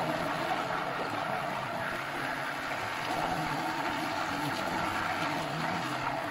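Moulinex hand-held immersion blender running steadily in a pot of cooked wheat grain and milk, puréeing the grain into a thick cream.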